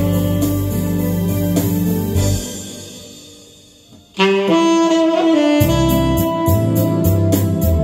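Tenor saxophone playing a melody over a backing track. About two seconds in, the accompaniment dies away to a short lull. Just after four seconds, the saxophone comes back in on a strong held note, and the backing beat picks up again soon after.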